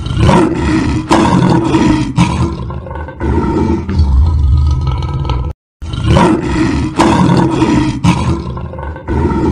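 Lion growling and roaring in a string of deep calls, cutting out briefly about five and a half seconds in.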